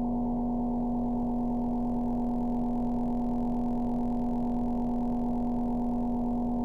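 A creepy sound-effect drone: a steady low hum-like tone with fainter tones above it, unchanging in pitch and loudness.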